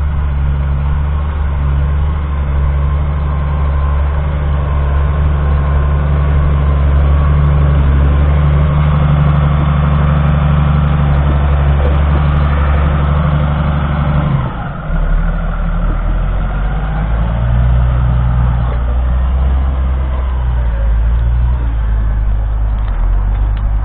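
Lamborghini R6.140 DCR tractor's 6.1-litre six-cylinder diesel engine running steadily while pulling a plough. A little past halfway the engine note drops suddenly and settles lower.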